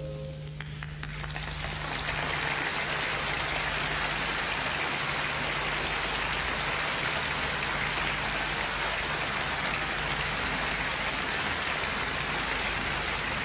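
A held sung note with piano ends in the first half-second, then audience applause builds over about two seconds and continues steadily. A steady low hum runs underneath.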